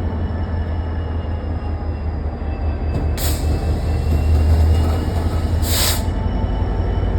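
Loaded stone freight train moving slowly, a steady low rumble with faint wheel squeal, and two short hisses about three and six seconds in.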